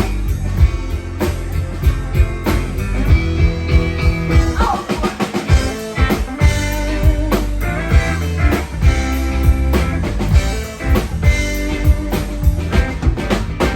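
Live rock band playing an instrumental passage: guitar over bass and drum kit in a steady beat, with a guitar note sliding down about four and a half seconds in.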